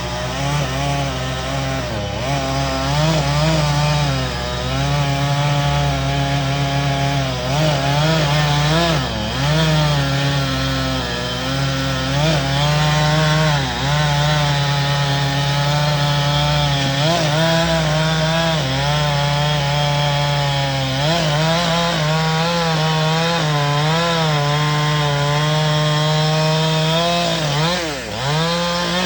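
Chainsaw running and cutting through a large tree trunk. Its engine speed dips and recovers repeatedly as the chain bites into the wood.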